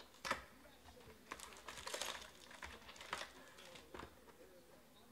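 Cardboard trading-card hobby box being handled and opened: a string of sharp taps and clicks, with a denser patch of rustling and clicking around two seconds in.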